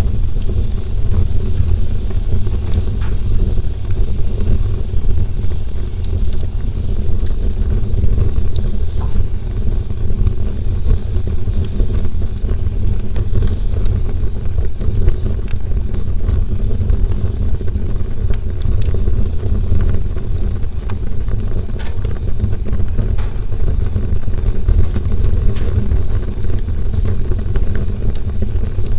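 Campfire burning, with a steady low rumble under scattered crackles and pops from the burning wood.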